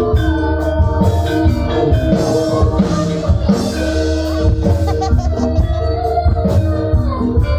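Loud Javanese gamelan music for a Banyumas lengger session: steady ringing metallophone notes over continuous drumming.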